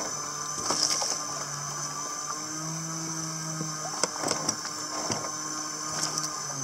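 Water slapping and splashing against the hull of a wooden outrigger fishing boat, with several sharp knocks, over a steady hiss and a low hum that shifts in pitch every second or so.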